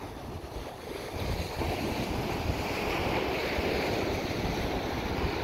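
Sea surf breaking and washing up a sand and gravel shore, swelling louder about a second in, with wind buffeting the microphone.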